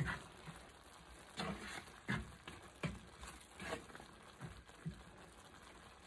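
A spoon stirring a thick corned beef and pork and beans sauce in a frying pan: a string of short scrapes and knocks against the pan over a faint simmering sizzle.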